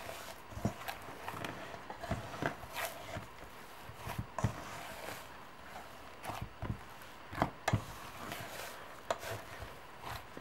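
Hand kneading stiff rice-flour murukku dough in a stainless steel bowl: irregular soft thuds and knocks, about one or two a second, as the dough is pressed, folded and pushed against the bowl.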